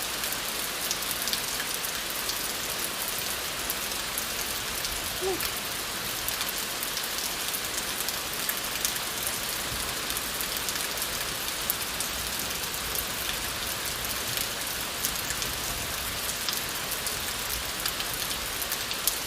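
Steady rain falling, an even hiss with many scattered drops ticking.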